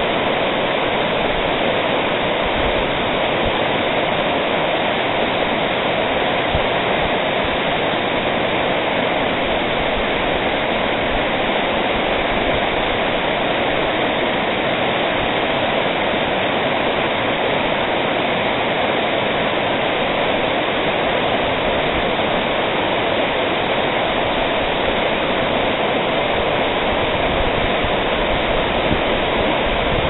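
Waterfall and the rocky cascade below it, water pouring and tumbling over stone in a loud, steady rush that never lets up.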